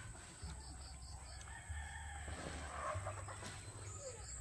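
A rooster crowing: one long call starting about a second and a half in.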